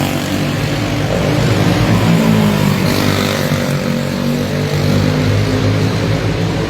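Several clone-engine racing go-karts running together, their small single-cylinder four-stroke engines droning and revving, with pitch shifting a little up and down as they work through the track.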